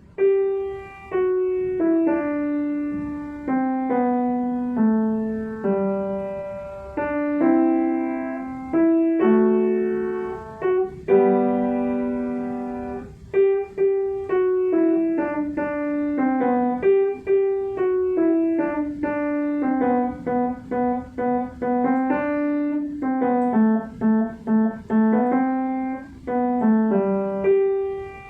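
Piano played solo: a simple melody of single struck notes, each fading after it is played, with an occasional fuller chord.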